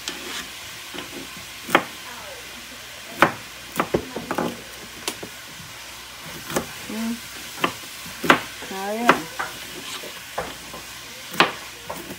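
Kitchen knife cutting through peeled Italian gourd onto a plastic cutting board: a series of sharp, uneven knocks, roughly one a second, as the blade strikes the board. Under the knocks is a steady hiss.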